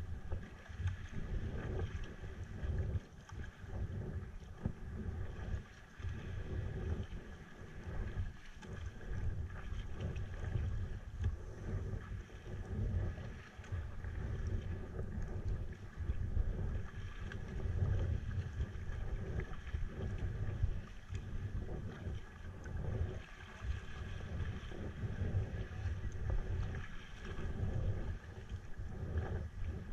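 Sea kayak under way in a strong wind: wind rumbling and buffeting on the microphone in irregular gusts, over water splashing around the hull.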